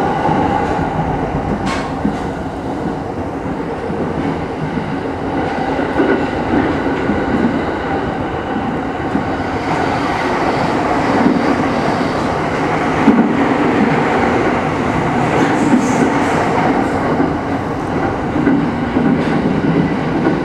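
E217 series electric commuter train running along the line, heard from just behind the driver's cab: a steady rumble of wheels on the rails with a few sharp clicks from the track.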